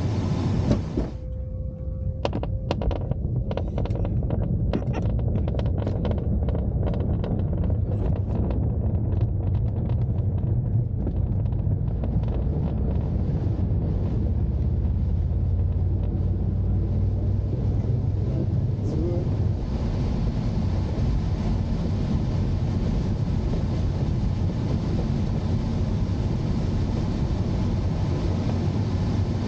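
Steady low rumble heard inside a glider's cockpit as it takes off from a runway, with clicks and rattles over the first ten seconds or so and a rushing hiss that grows from about the middle on.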